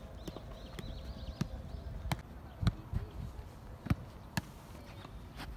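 A soccer ball being kicked and bouncing on grass: a string of irregular sharp thuds, roughly one or two a second.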